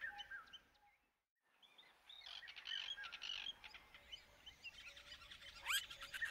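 A chorus of birds chirping and calling, with several loud rising whistled calls near the end. The sound drops out briefly about a second in.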